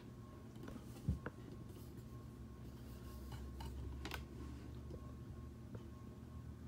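Quiet room tone with a faint low hum that swells slightly midway, and a few light sharp clicks.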